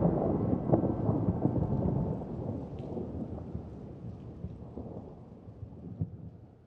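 Rumbling thunder with rain, fading out gradually.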